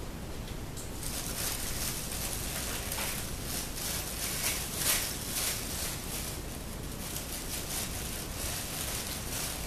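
Rustling and crackling: a dense run of soft, quick scratchy ticks, busiest around the middle.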